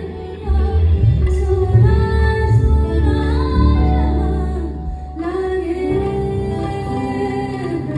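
A woman singing a melody with held, gliding notes over instrumental backing with a strong, steady bass, amplified through a stage sound system during a sound check.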